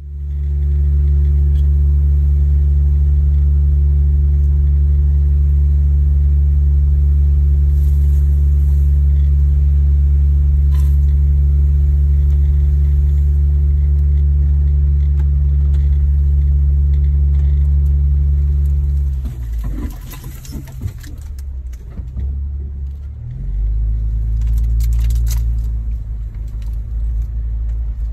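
Jeep Wrangler driving a dirt trail, its engine and drivetrain making a steady low drone, heard from inside the cabin. About 19 seconds in the drone drops away into rattling and clicks for a few seconds, then a steady low drone returns.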